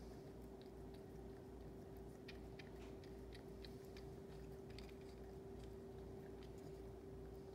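Cat licking paste from a tube: faint, quick, wet tongue and lip clicks, mostly in the middle, over a steady low hum.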